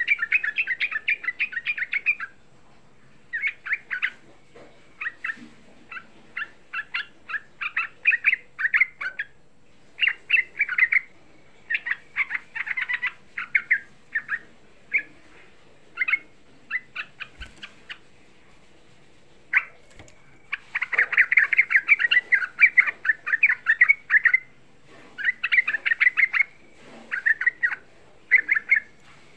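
Yellow-vented bulbul singing: fast runs of chattering notes in repeated phrases with short gaps between them, a pause of a few seconds past the middle, then a long dense run.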